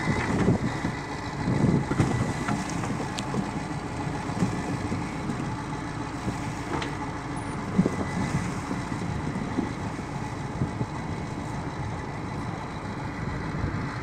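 Large articulated wheel loader's diesel engine running steadily as the machine pushes slabs of broken river ice with its bucket.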